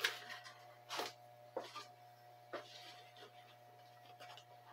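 Several short clunks and rustles, the loudest right at the start and another about a second in, over a faint steady hum.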